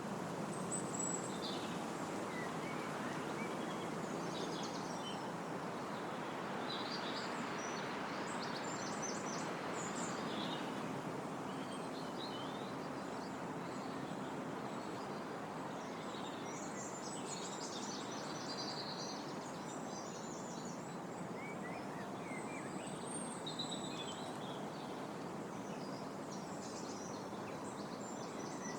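Wind blowing steadily through trees, a constant rush of leaves, with small birds chirping and singing on and off above it.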